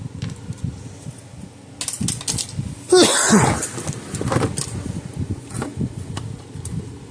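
Plastic fence-charger case and its screws being handled on a workbench: scattered clicks and rattles. About three seconds in comes a loud scrape with a short falling squeal.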